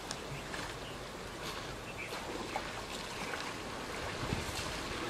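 Water sloshing and splashing as young Asian elephants wade and play in a shallow muddy pool, with short splashes scattered through a steady rushing background noise.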